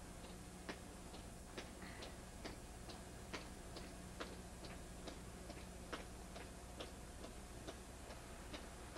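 Footsteps of a sailor colour guard marching on pavement: faint, sharp shoe clicks, a stronger one roughly every second with lighter ones in between, over a steady low hum.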